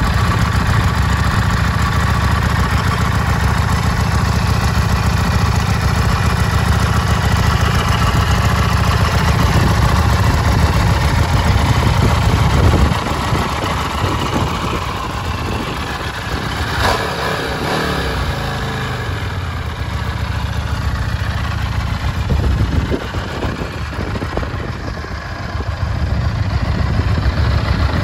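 2010 Buell 1125R's Rotax 1125 cc 72-degree V-twin idling through its standard exhaust, the sound a little quieter from about halfway through and swelling and easing again near the end.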